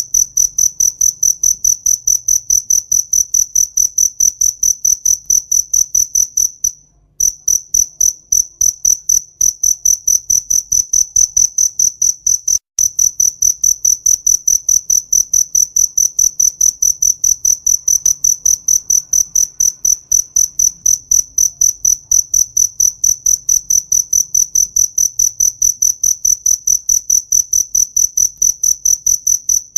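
A cricket chirping continuously in a fast, even rhythm of short high-pitched pulses on one steady pitch, pausing briefly about seven seconds in.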